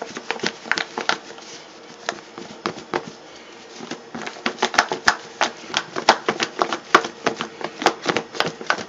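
Pieces of squirrel meat knocking and rattling inside a lidded plastic food container as it is shaken to coat them in flour. The knocking is sparse for a couple of seconds, then quicker and louder from about four seconds in.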